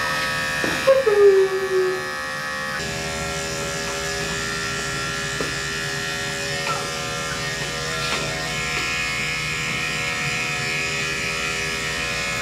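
Andis electric dog clipper running steadily as it shaves a Yorkshire terrier puppy's coat, its hum shifting in pitch about three seconds in. Near the start a brief falling voice-like sound rises above the hum.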